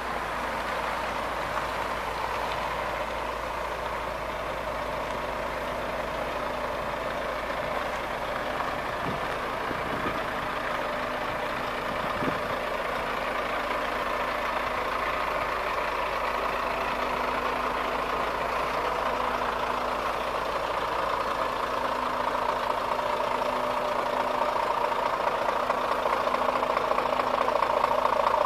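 Scania R440 truck's 13-litre straight-six diesel idling steadily, growing louder near the end.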